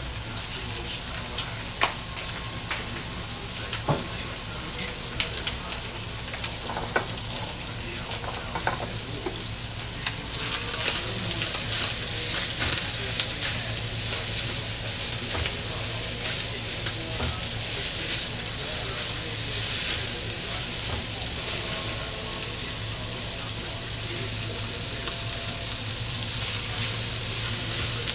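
Sliced vegetables and meat sizzling in a hot frying pan as they are stir-fried with a wooden spatula, with sharp knocks against the pan during the first part. The sizzle grows louder about ten seconds in.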